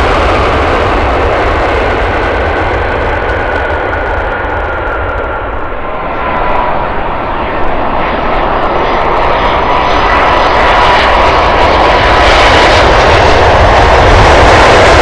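Jet airliner engines during landing. First a Boeing 777-300ER's GE90 engines just after touchdown, the sound fading over about six seconds. Then an Airbus A330-300 with Rolls-Royce Trent 700 engines on final approach, its engine whine and rumble growing steadily louder as it comes in and touches down near the end.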